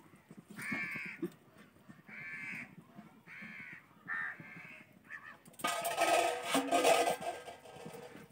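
A crow cawing repeatedly, about five short, similar caws roughly a second apart. Near the end comes a louder, noisier sound lasting about a second and a half.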